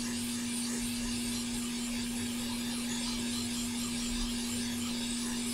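Hot air rework station blowing steadily on a circuit board: a constant airy hiss with a steady hum underneath, pre-heating solder joints before desoldering.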